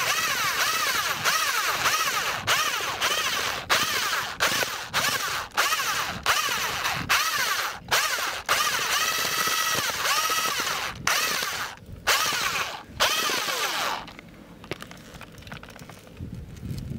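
Power drill stirring groundbait, its motor whine rising and falling over and over, broken by several abrupt cuts; it stops about fourteen seconds in, leaving much quieter background sound.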